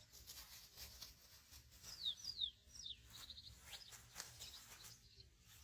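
Faint bird calls: three quick high chirps that slide downward in pitch about two seconds in, then a short run of rapid high ticks, over faint scattered clicks.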